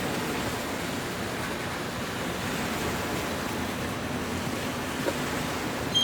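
Harbour ambience: a steady wash of water and distant port noise, with a faint low hum coming in about two seconds in and a small knock near the end.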